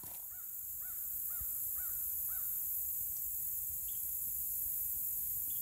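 A crow cawing five times in quick succession, about two calls a second, in the first half of the clip. Under it runs a steady high-pitched insect chorus.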